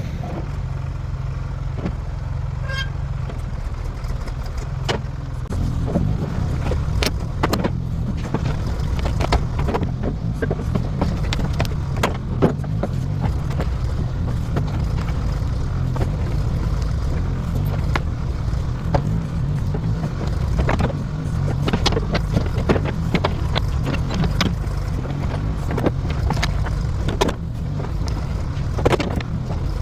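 Diesel engine of a 1973 Ford 4500 industrial backhoe running steadily under work, with frequent clanks and knocks throughout.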